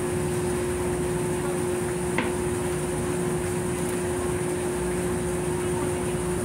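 Steady machinery drone with a constant mid-pitched hum and a faint high whine; a single sharp knock about two seconds in.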